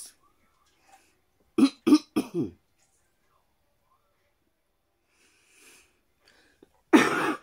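A woman coughing from a dry throat: three quick coughs about a second and a half in, then a louder cough near the end.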